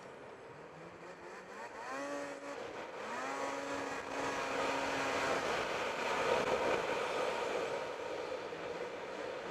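Snowmobile engine revving up twice in quick succession, about two and three seconds in, holding a steady pitch briefly, then running louder under throttle with a rushing noise as the sled rides the trail. The engine is being broken in.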